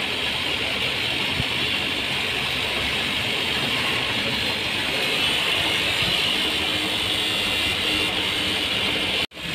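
Steady hiss with a low hum underneath, cutting out abruptly for a moment near the end.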